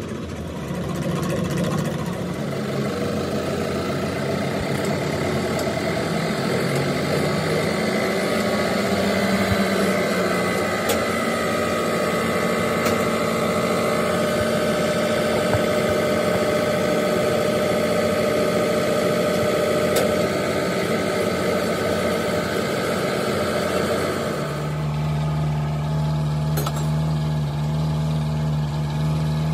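Diesel fuel-injection pump test bench running, its drive spinning a rotary distributor-type injection pump under test with a steady mechanical hum and whine. About three-quarters of the way in the sound changes: the higher whine drops away and a deeper, stronger hum takes over, as the running speed changes.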